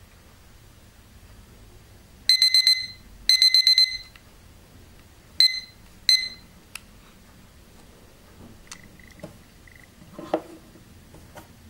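Digital LCD kitchen timer beeping its countdown alarm, a high 'di-di-di-di' given twice in quick groups of four, then two single beeps. A light knock near the end.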